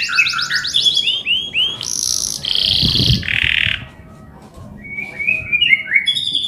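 Male domestic canary singing. It opens with a fast roll of repeated notes and a few sliding whistles, gives harsh buzzy notes in the middle, pauses briefly at about four seconds, then goes on with quick chirping 'cuit cuit' notes.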